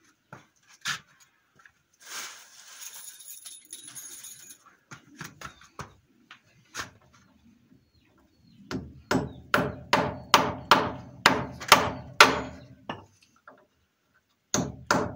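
Hammer driving nails into wooden barn boards: a single knock about a second in and some scraping of wood, then a run of about nine quick blows, two or three a second, and two more near the end.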